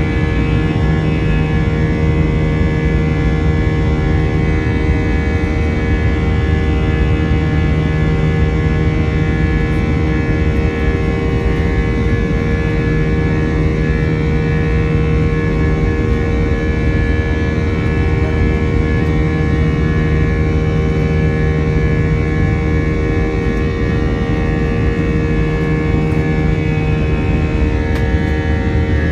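Jet airliner cabin noise during the climb after take-off: the engines and airflow make a loud, steady drone with a steady hum tone, and a lower hum fades in and out every few seconds.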